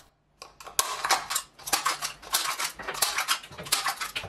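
Scissors cutting through a thin plastic yogurt cup: a quick run of snips and crackling plastic, several a second, beginning about half a second in.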